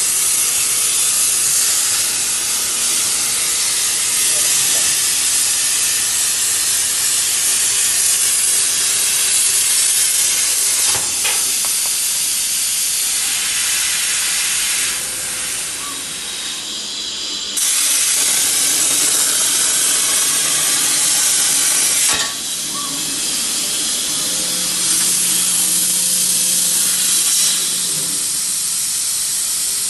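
Plasma arc of a 105 A Hypertherm torch on a CNC plasma table cutting steel, a loud, steady hiss. It drops away and starts again sharply a few times as the arc stops and restarts between cuts.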